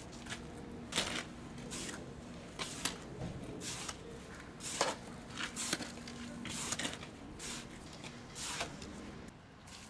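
Steel shovel scraping across a concrete pavement and turning over a pile of wet cement mix by hand, in repeated short strokes about once a second.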